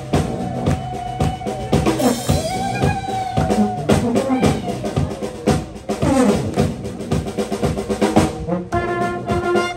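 Street brass band playing live: a drum kit keeping a busy beat on snare and bass drum under sousaphone, saxophones, trumpets and trombone.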